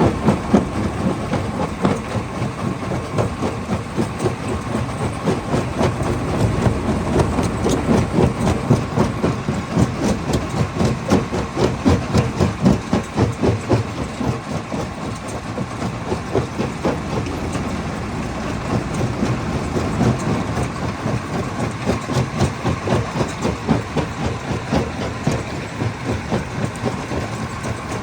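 Hammer crusher running with a steady machine drone, stone clattering and knocking inside it in a dense, irregular stream of impacts.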